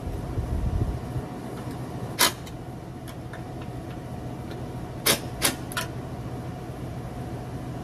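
A few sharp clicks and knocks of a tool against a metal electrical disconnect box: one about two seconds in, then three in quick succession around five seconds, over a steady low mechanical hum.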